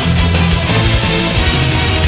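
Loud, dense heavy rock music playing steadily as a soundtrack.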